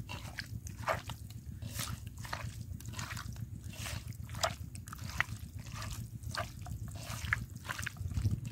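Hands squishing raw chicken pieces through a wet yogurt-and-spice marinade: irregular wet squelches and slaps, about two or three a second.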